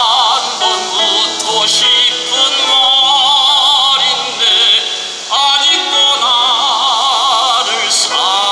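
Tenor singing a Korean art song in classical style with wide vibrato, accompanied by grand piano. He holds one phrase, takes a short breath about five seconds in, and starts a new phrase.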